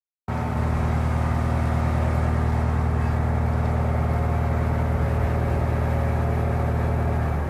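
A small passenger ferry's engine running steadily under way, heard from on board as a loud, even, low hum.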